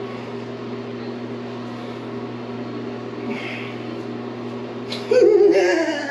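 A steady low electrical motor hum fills the small room. There is a short hiss about halfway through. About five seconds in, a man gives a loud, drawn-out exclamation that falls in pitch, reacting with disgust to the stench of fart prank spray.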